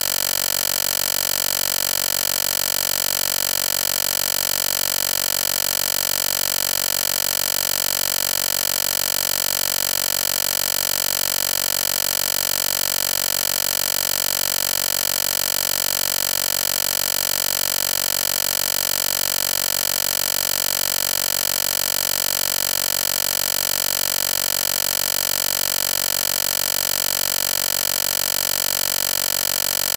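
A loud, steady buzzing drone that does not change at all.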